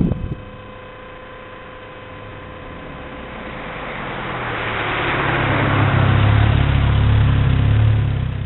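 Volkswagen Scirocco driving up the road and past the microphone: engine and tyre noise grow steadily louder over several seconds to a peak, then fall away near the end.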